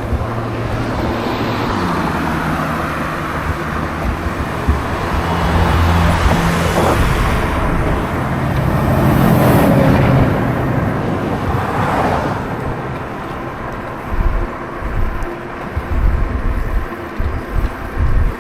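Road traffic: a vehicle passing, swelling and fading around the middle, over steady road noise. Choppy gusts of wind buffet the microphone near the end.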